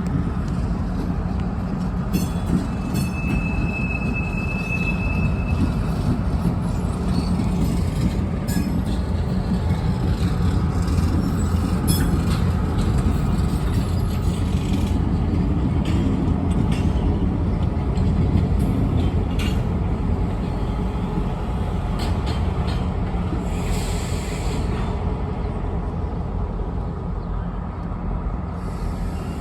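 Freight train rolling along the rails: a steady low rumble, a brief high wheel squeal about three seconds in, and scattered clicks of wheels passing over rail joints.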